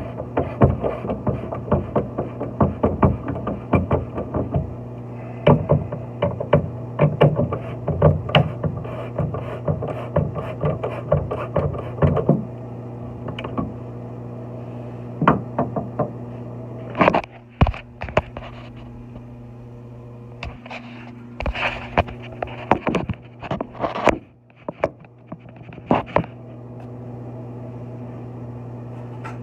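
Steady low hum under a run of sharp clicks and knocks, many in quick succession at first and only a few scattered ones later: hand work on a tub/shower valve and its remodel plate.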